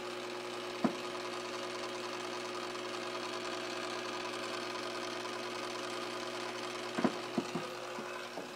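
Kenmore 80 series washing machine running with a steady motor hum while the tub does not agitate, with a single knock about a second in and a few more knocks near the end. The owner takes the fault for the timer.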